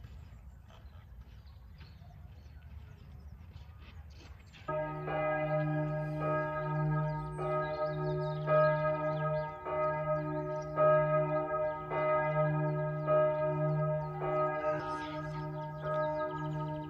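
Church bells start ringing suddenly a few seconds in, after faint background noise, and keep pealing with fresh strikes about once a second.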